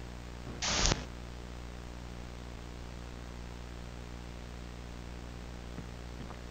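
Steady low hum under a hiss, broken just under a second in by a short, loud burst of noise.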